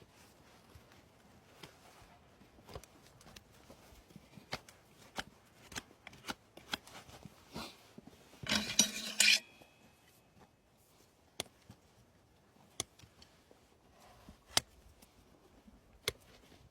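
Farrier's tools working on a horse's hoof: scattered sharp clicks, snips and short scrapes, with one louder scraping burst lasting under a second about eight and a half seconds in.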